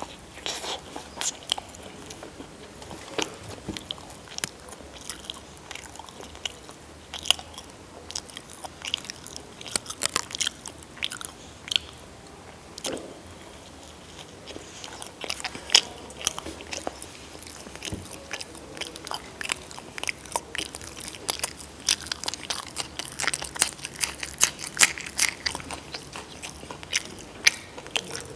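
A person chewing and biting food close to the microphone, with many sharp, irregular crunching clicks throughout.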